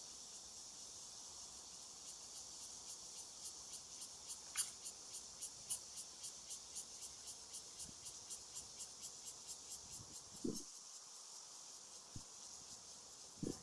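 Insects chirping: a steady high buzz with regular pulses about four a second, and a single sharp click a little under five seconds in.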